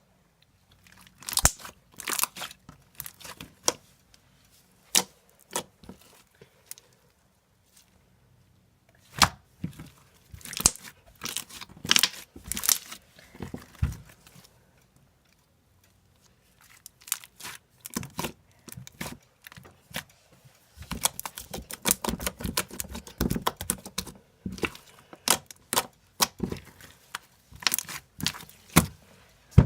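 Slime being squished and pulled by hand, giving irregular sticky clicks and crackling pops, with a dense run of rapid clicks in the second half.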